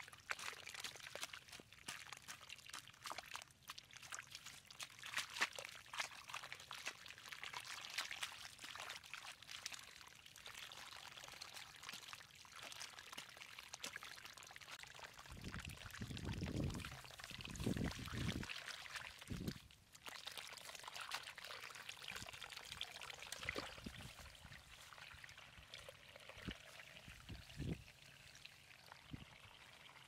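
Muddy water running and trickling through a shallow channel cut in wet soil, with a hoe scraping and chopping into the mud. A few low thumps come a little past the middle and once more near the end.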